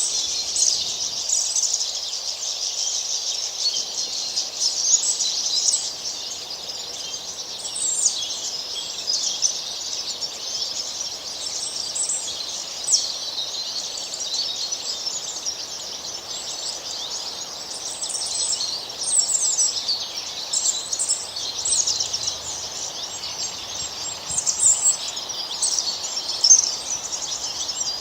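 Many songbirds chirping and singing together in a dense, continuous chorus of quick, high chirps and trills.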